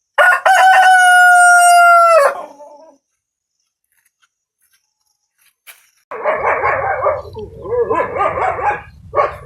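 A rooster crowing once, one long call of about two seconds that drops in pitch at the end. About six seconds in, a rougher, noisier sound follows for about three seconds over a low hum.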